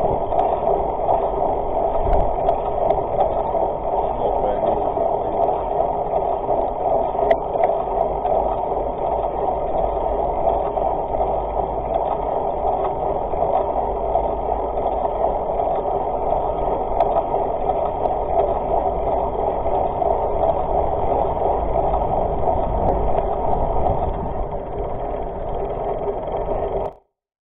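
Steady, muffled riding noise picked up by a camera mounted on a mountain bike's front fork: the knobby tyre rolling over paved ground, mixed with wind rush. It cuts off suddenly near the end.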